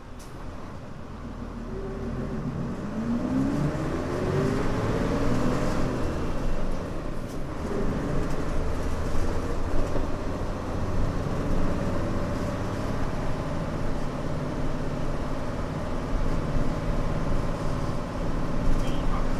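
Mitsubishi Fuso Aerostar city bus's 6D24 straight-six diesel pulling away under hard acceleration, its pitch climbing steeply as it is revved out. The pitch drops at a gear change about seven and a half seconds in, then the engine pulls on steadily and loud.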